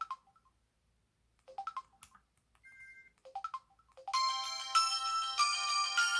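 Samsung Anycall SPH-V9000 phone playing three short rising chirps about a second and a half apart, then a bell-like polyphonic ringtone melody that starts about four seconds in and is the loudest part.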